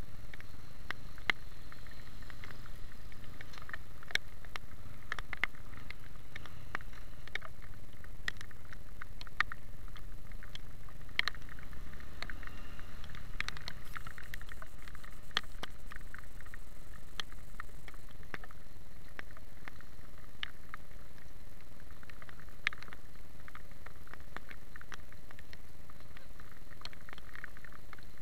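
Raindrops ticking irregularly against a motorcycle-mounted camera while riding in the rain, over a steady low rumble of the motorcycle and wet road.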